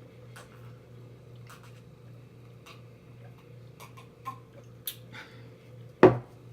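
Close-up eating mouth sounds: scattered wet lip smacks and chewing clicks, over a steady low hum. A single loud, short thump near the end.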